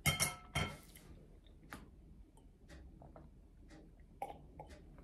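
Two sharp clinks of a mug or small glass bottle on the table in the first second, the first with a brief ringing, followed by a few faint clicks.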